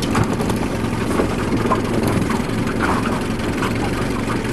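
Small outboard motor running steadily at low trolling speed, a constant low hum, with a few light knocks near the start.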